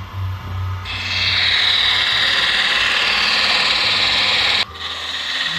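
A steel tool edge held against a motor-driven spinning wheel or workpiece: a steady grinding hiss starts about a second in over a low motor hum and stops suddenly near the end, then briefly starts again.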